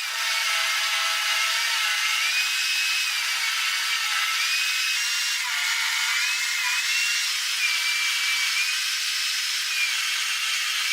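Electric power tool working wood: a steady high motor whine that dips and recovers irregularly as the tool is loaded by the cut.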